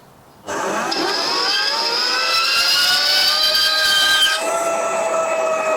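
Warco 5-inch bench top horizontal band saw starting up about half a second in, its blade cutting through aluminium tube with a steady, ringing whine of several tones that climb slightly as it comes up to speed. About four seconds in the higher tones drop away and the pitch shifts.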